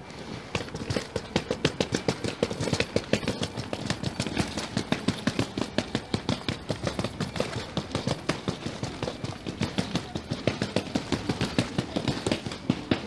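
Footsteps of several people walking on wet cobblestones: a quick, even run of sharp steps, several a second.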